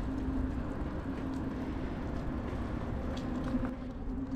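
Steady wind and rolling noise from a bicycle riding along a paved path, with a constant low hum underneath.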